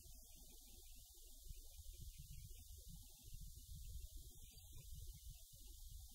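Near silence: a faint, uneven low rumble of wind on the microphone, with a faint short high peep about four and a half seconds in.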